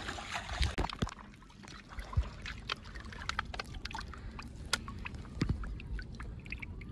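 Shallow river water splashing and trickling around people wading through it, with many short splashes scattered throughout.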